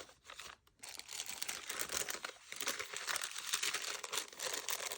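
Paper rustling and crinkling as the pages and loose paper pieces of a handmade journal are handled and turned. There are a few short rustles in the first second, then near-continuous crackly handling noise.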